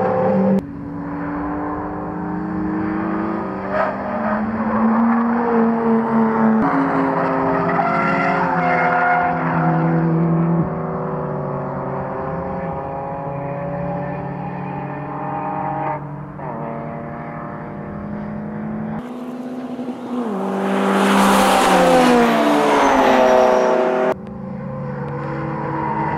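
BMW 325i E92's N52B25 naturally aspirated straight-six, with aftermarket headers, an open intake and a stainless exhaust, revving hard on track through several cut-together clips, its pitch climbing and dropping with throttle and gear changes. From about 19 to 24 seconds a louder, harsher passage adds a hiss over the engine, typical of the tyres sliding in a drift.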